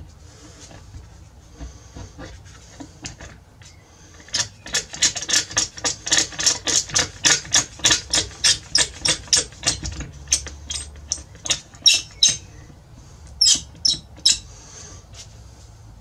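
Rapid rubbing strokes of a hand tool across the wooden guitar top, about three or four a second. They start about four seconds in and stop after about eight seconds, and three more strokes follow near the end.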